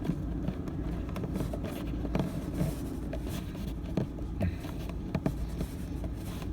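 Scattered small clicks and knocks of hands working a water-line fitting, hand-tightening it onto a Thetford RV toilet's water valve, over a steady low hum.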